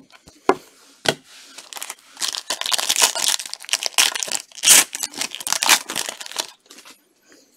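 Foil wrapper of a Topps Tier 1 baseball card pack being torn open and crinkled in gloved hands: dense crackling from about two seconds in, after a few sharp clicks.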